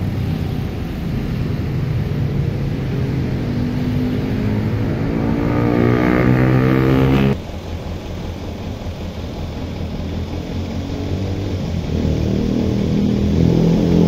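An engine running, its pitch rising steadily for a few seconds before the sound cuts off abruptly about seven seconds in. A lower engine sound continues afterwards and grows louder near the end.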